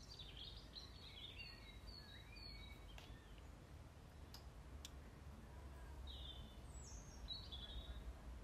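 Near silence over a low room hum, with faint birdsong: short chirping and twittering calls during the first three seconds and again about six seconds in. A few faint clicks in between.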